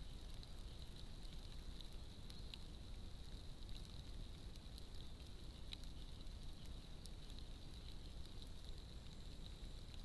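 Faint steady hiss from a trail camera's microphone, with a thin, steady high tone and scattered light ticks. No birdsong.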